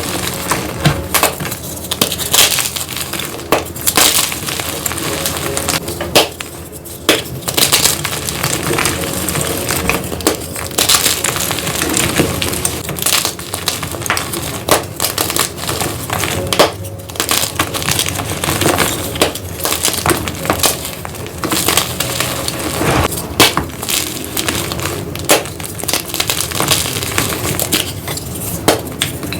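Blocks of gym chalk being crushed and crumbling, a dense, irregular run of crunchy, glassy-sounding cracks and snaps.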